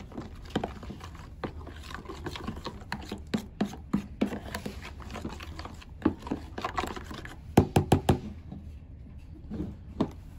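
Metal spoon stirring a runny glue-and-baking-soda slime mixture in a plastic tub, with repeated clicks and scrapes against the tub's sides and bottom. A quick run of louder knocks comes about three quarters of the way through.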